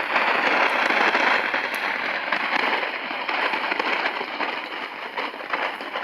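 Shortwave receiver static from a Sangean ATS-909X: a steady hiss with crackle through the radio's speaker, with no station coming through.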